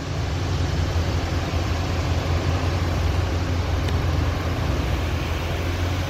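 Wood shredder grinding land-clearing debris into mulch, fed by an excavator: a loud, even drone with a deep rumble underneath that holds steady throughout.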